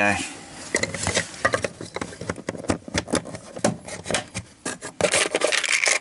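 Rubbing, scraping and quick plastic clicks as a small plastic box of spare blade fuses is picked up and handled, many short clicks in a row.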